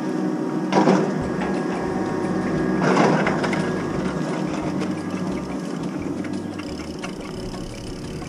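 Drag-lift machinery humming steadily, slowly fading as the rider is towed away, with two short bursts of clatter about one and three seconds in as the tow bar is taken up.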